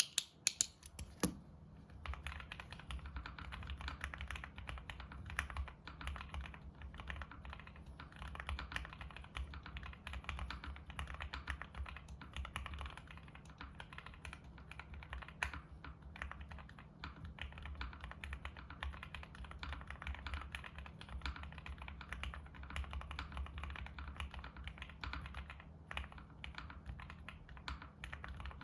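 Continuous fast typing on a custom mechanical keyboard with lubed and filmed Gateron X linear switches on a POM plate, fully foamed, with Cherry-profile ABS doubleshot keycaps. Dense clicks of keystrokes, after a few separate sharp clicks in the first second or so.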